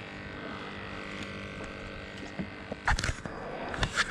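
Spinning rod and reel being cast: a brief swish about three seconds in and a sharp click about a second later, over a steady faint hum.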